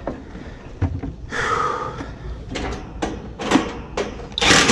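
Sheet-metal panels of a Carrier Brown Round condenser cabinet being worked back into place: a scrape, then a run of knocks and clanks, the loudest near the end.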